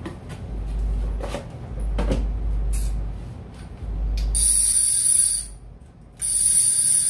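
A new fishing reel being handled and turned, with a few light clicks, then two buzzing ratchet bursts of about a second each near the end.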